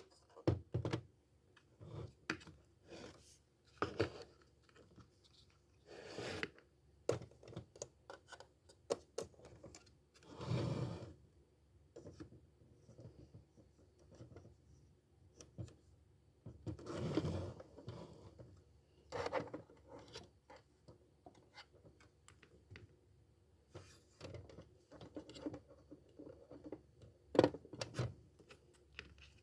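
Tabletop handwork: scattered clicks, taps and scrapes of paper and small objects being handled and cut, with a couple of longer scraping or rustling strokes about a second long.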